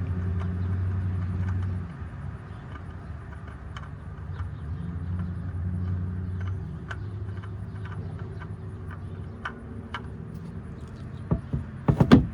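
A steady low mechanical hum, louder for about the first two seconds, under scattered light clicks and taps. A quick cluster of sharp knocks comes near the end.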